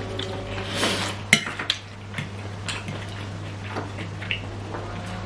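Cutlery clinking and scraping on a plate during eating, a few sharp clicks spread through, over a steady low hum.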